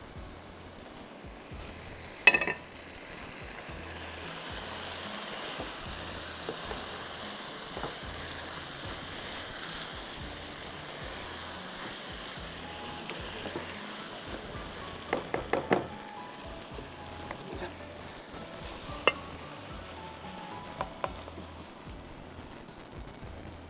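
Fried chicken pieces in a thick sauce sizzling in a hot nonstick wok as a spatula stirs them, with a steady hiss that builds a few seconds in. A sharp knock comes about two seconds in, and the spatula clicks against the pan several times in the second half.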